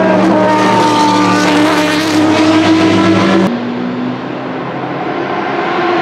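Judd GV4 4.0-litre V10 of a 2001 Dallara SP1 prototype racing at high revs, a loud steady engine note. About three and a half seconds in, the sound cuts abruptly to the same car heard further off, quieter and duller, growing louder as it approaches.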